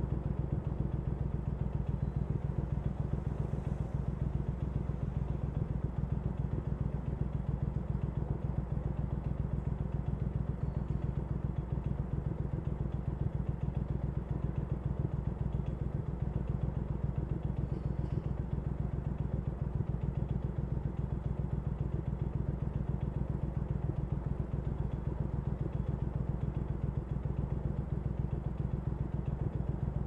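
Triumph Scrambler 900's parallel-twin engine idling steadily through an Arrow aftermarket exhaust, with an even, unchanging beat.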